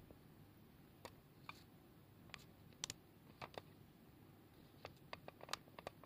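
Faint, scattered clicks and small water splashes in a shallow plastic tub, about a dozen over several seconds and bunched towards the end, the loudest near the end: a frog thrashing in the water as it struggles to swallow a live fish.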